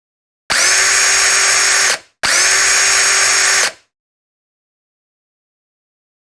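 Power drill driving screws: two runs of about a second and a half each, the motor spinning up quickly, holding a steady whine, then winding down.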